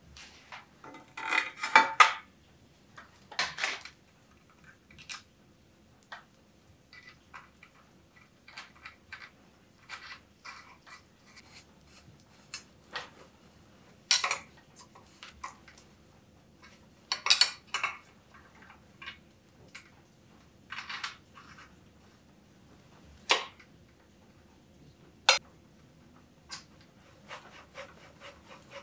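Metal bicycle headset parts clinking, tapping and scraping as they are fitted onto the head tube and a flat headset wrench is handled: irregular sharp clicks, with the busiest, loudest cluster about one to two seconds in.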